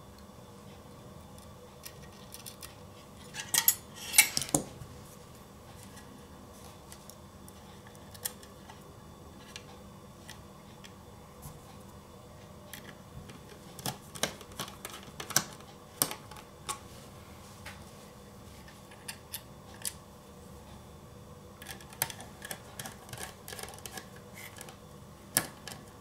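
Light clicks and small metallic clatter of a screwdriver and a laptop hard drive in its metal frame being handled and worked on, in scattered bursts. The loudest cluster comes about four seconds in, with more near the middle and towards the end.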